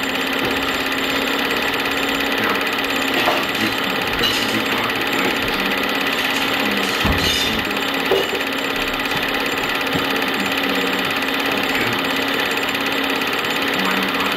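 Film projector running: a steady mechanical whirr with a constant low hum and a few faint clicks.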